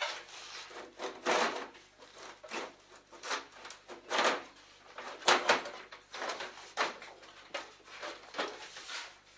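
Hand work on a sheet-metal computer case: a run of short scraping strokes, roughly one a second and uneven in strength, with the metal case knocking as it is handled and turned upright near the end.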